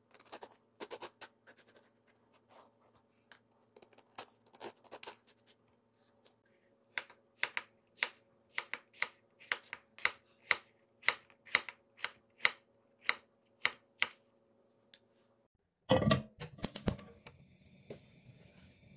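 Kitchen knife working a luffa gourd on a wooden cutting board: light scrapes and clicks as the ridged skin is pared off, then a steady series of knife strikes through the soft gourd onto the board, about two a second. Near the end, a short loud clatter, then a faint steady hum.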